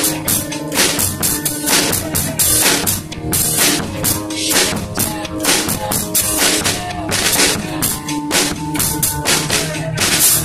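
Drum kit played steadily along to recorded music from the radio: dense drum and cymbal hits over a pitched backing track.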